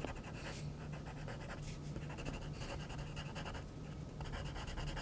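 Wooden graphite pencil scratching on paper in many quick, short strokes, sketching the branches of a small pine tree.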